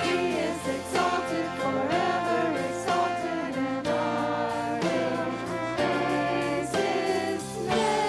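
Christian music with a choir singing, the chords changing about once a second.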